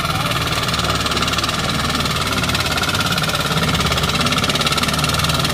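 Turtle-tiller hand tractor's engine running steadily under load as the machine churns through soft, boggy paddy mud, which makes it hard to till.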